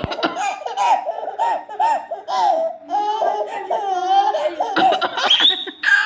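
A baby belly-laughing in a run of short, high-pitched bursts, with a fluttering stretch in the middle and a higher, rising squeal near the end.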